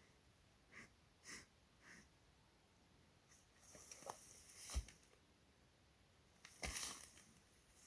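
A large deer breathing and sniffing close to a trail camera: three soft short puffs, then a louder, longer breath ending in a dull thump about halfway through, and another loud puff near the end, over near silence.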